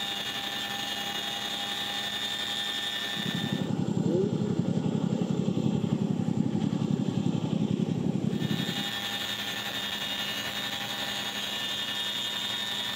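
CH-47 Chinook tandem-rotor helicopter. Heard inside the cabin, it makes a steady high-pitched whine over engine and wind noise. From about three seconds in to about nine, the view is from outside and the sound is the rotors' fast, low beating, before the cabin whine returns.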